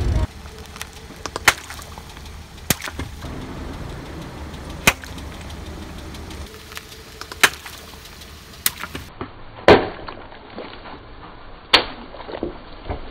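Car tyre rolling over balloons and small objects on asphalt, crushing them with a string of sharp cracks and pops a second or two apart. Near the end a water balloon bursts under the tyre with a splash.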